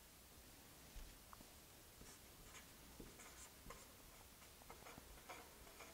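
Felt-tip marker writing on paper: faint, short scratchy strokes as letters and lines are drawn.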